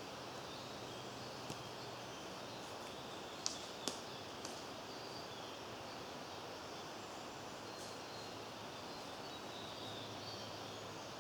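Outdoor ambience: a steady background hiss with faint, distant bird calls, and a few sharp short clicks, the loudest two close together about three and a half to four seconds in.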